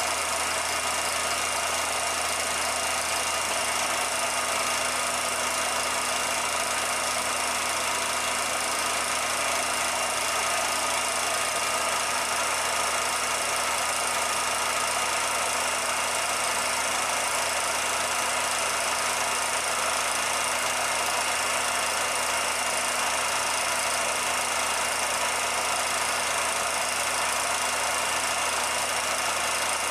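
Steady, unchanging mechanical hum with hiss, the same throughout, with no separate events.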